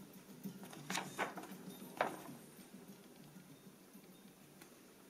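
Folded paper poster insert crackling as it is handled and turned over: a few sharp crinkles in the first two seconds, then only faint rustling.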